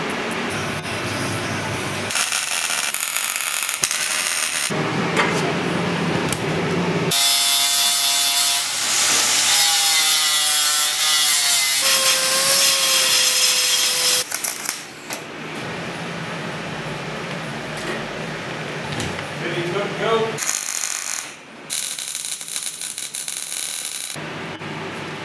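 Power tools working sheet metal: a loud motor whine whose pitch drops and rises as the tool cuts, between stretches of harsh grinding noise. Near the end comes a burst of welding crackle.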